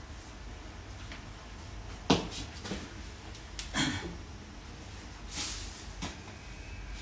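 Handling noises while changing into shoes by metal lockers: a few separate knocks and clunks with short rustles, the sharpest knock about two seconds in, over a low steady hum.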